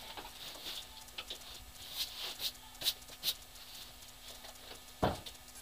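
Scattered crunches and sharp clicks of a person moving about on snow and handling a motorcycle by hand, with a louder dull thump about five seconds in. The engine is not running.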